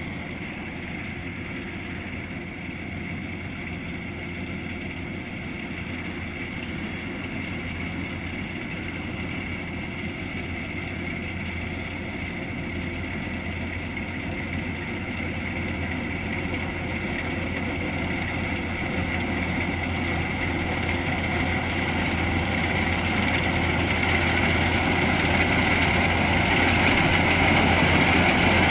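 Kubota DC-105X rice combine harvester's diesel engine and threshing machinery running steadily, growing gradually louder as the machine comes closer.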